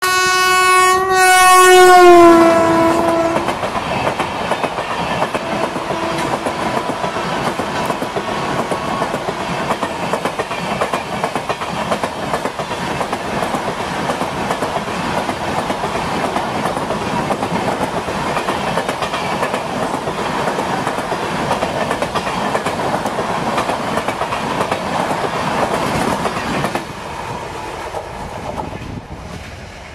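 A WAP7 electric locomotive's horn sounds as the express approaches at speed, its pitch dropping as the locomotive passes. Then the passenger coaches rush past with a rapid clickety-clack of wheels over the rail joints, which fades away near the end as the last coach goes by.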